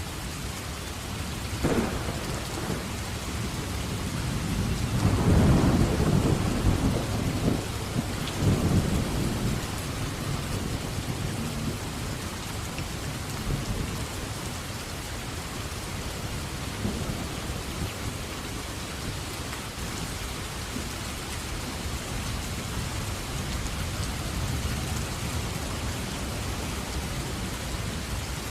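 Steady heavy rain with a thunderclap: a sharp crack just under two seconds in, then a louder rumbling roll of thunder from about five to nine seconds that fades back into the rain.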